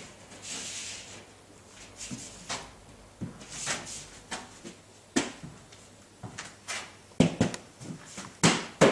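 Hand and fist thumps on a plasterboard sheet as it is tapped and pressed into the dabs of adhesive on the wall: scattered knocks, the loudest few near the end.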